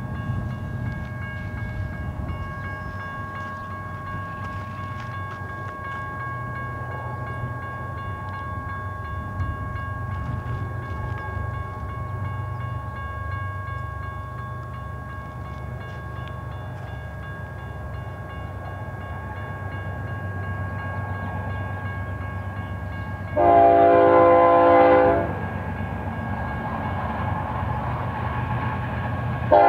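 Approaching BNSF double-stack freight train: a low rumble under a steady ringing of several pitches, typical of an activated grade crossing bell. About 23 seconds in, the locomotive sounds one long horn blast of about two seconds, the loudest sound here, and a second blast starts at the very end, as part of the horn signal for the grade crossing.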